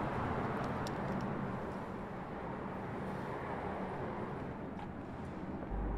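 Street traffic noise: a steady hum of passing cars. A deep low rumble starts abruptly near the end.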